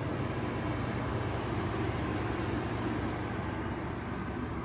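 A 2016 Ford F-150's 3.5-litre V6 idling steadily, a low even rumble.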